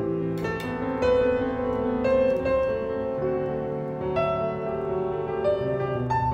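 Background music led by piano, a slow melody of sustained notes over held lower tones.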